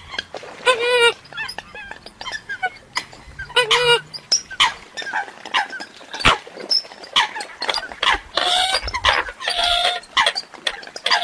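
Eurasian coots calling: a busy run of short, harsh, repeated calls, some clear and pitched, others rougher and noisier about two-thirds of the way through.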